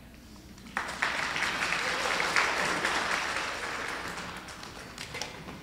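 Audience applauding. The clapping starts suddenly about a second in and slowly dies away near the end.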